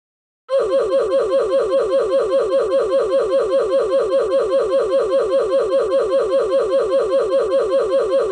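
A goofy meme sound effect: a rapid, evenly repeating laugh-like sound, each short pulse falling in pitch, about five a second, starting about half a second in.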